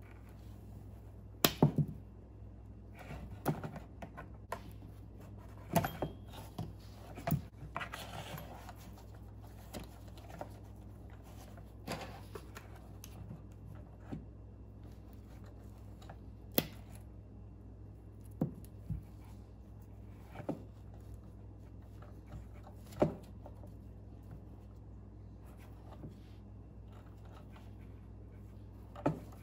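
Hand wire stripper cutting and stripping insulation from trolling-motor power wires: a dozen or so sharp snips and clicks at irregular intervals of one to a few seconds, with brief rustling of the wire and gloved hands between.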